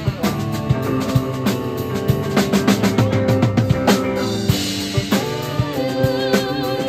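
Live psychedelic jazz band playing, the drum kit prominent over sustained pitched notes. A quick run of drum hits comes around the middle, followed by a cymbal wash, and a wavering high note enters near the end.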